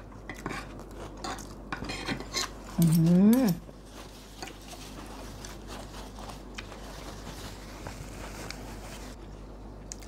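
Spoon and fork clicking and scraping on plates during a meal, with a brief hummed voice sound about three seconds in that is the loudest moment.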